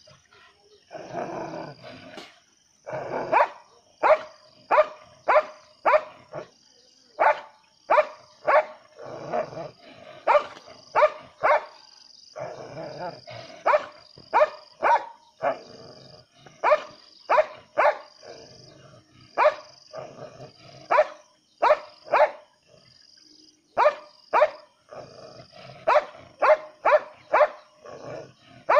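German Shepherd barking repeatedly up into a tree at a cat, in runs of short, sharp barks about two a second with brief pauses between runs.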